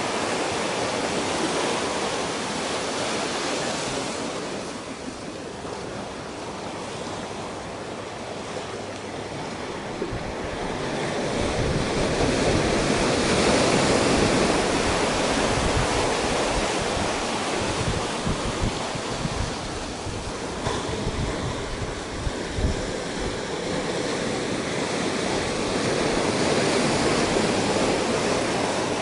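Ocean surf washing in over a rocky beach, waves breaking and draining back in a continuous rush that swells to a peak about halfway through and again near the end. Wind buffets the microphone with a low rumble through the middle.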